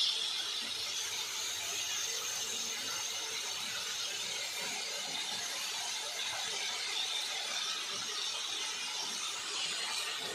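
Chicken and vegetables sizzling steadily in a hot wok during a stir-fry.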